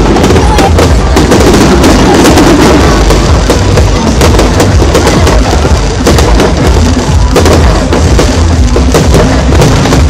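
Fireworks display: many shells bursting in quick succession, a dense, unbroken run of cracks and booms with heavy low rumble, very loud throughout.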